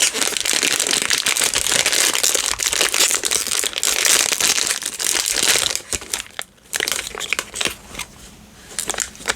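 Blind-box packaging being crinkled and crushed by hand as it is opened, a dense crackling for about six seconds that thins out to scattered rustles and clicks.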